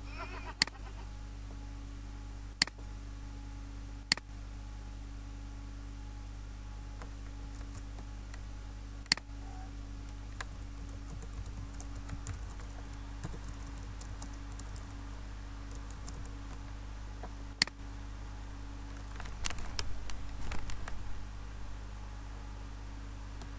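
Computer keyboard typing: faint rapid key taps in the middle and a louder burst of keystrokes near the end, with a few single sharp clicks spaced seconds apart, over a steady low electrical hum.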